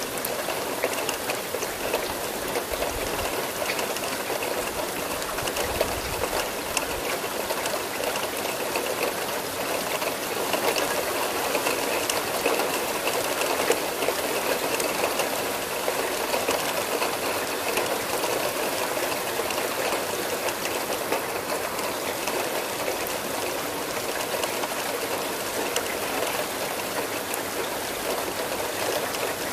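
Steady rain, a dense even hiss with many small drop impacts.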